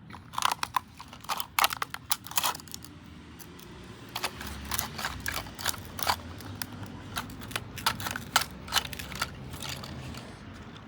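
Plastic toilet fill valve being broken apart by hand: irregular sharp cracks, snaps and clicks of its plastic parts, most frequent in the first couple of seconds.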